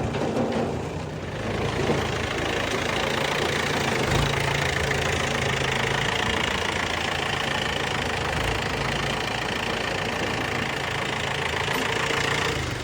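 Diesel engine of a heavy machine running steadily with a low drone, dropping away at the very end.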